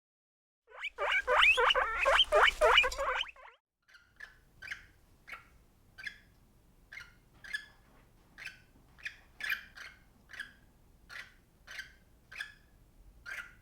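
A small animal squeaking rapidly for a few seconds, then a steady series of short, high chirps, about one and a half a second.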